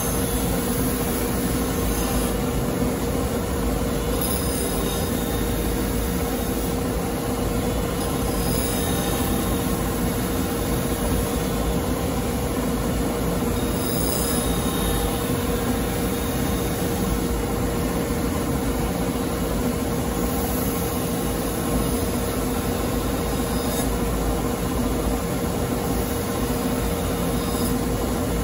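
Electric bench polishing machine running with a steady hum, while the machi (the step where blade meets tang) of a deba kitchen knife is held against its spinning wheel and polished.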